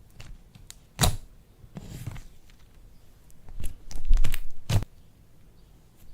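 Slime and its containers being handled: a sharp tap about a second in, a crackling, rustling stretch around four seconds, and another sharp tap just before five seconds.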